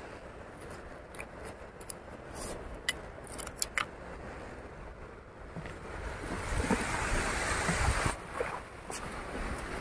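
Surf washing on a beach, swelling about six seconds in, with a scattering of small sharp clicks and taps in the first few seconds.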